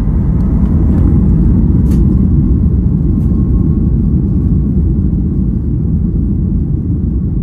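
An airliner's jet engines and wheels heard from inside the cabin during the take-off roll: a loud, steady, deep rumble that builds slightly in the first second.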